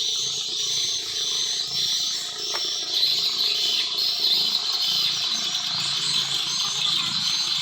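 Steady high-pitched chorus of insects, with short chirps repeating about twice a second above it.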